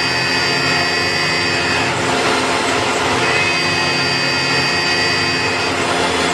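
Metalworking machine tool running steadily: a dense, continuous mechanical noise with a high whine that drops out briefly twice and returns.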